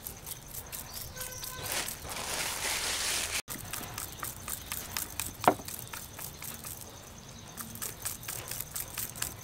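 A bundle of bamboo skewers jabbed repeatedly into raw chicken legs in a metal bowl: a run of small, quick pricking clicks, with one short sliding high note about halfway through.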